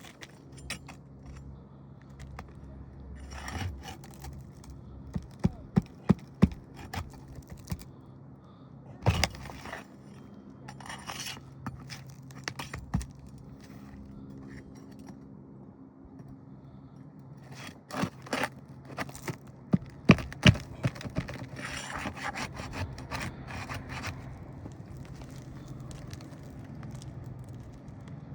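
Metal hand tool scraping and clicking against asphalt shingles and roofing nails as the nails are worked loose, with clusters of sharp taps about five to seven seconds in and again near twenty seconds.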